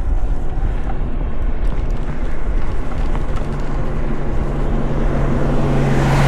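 Steady wind and rolling noise from riding a bicycle, with a car's engine hum growing louder in the second half as it comes near.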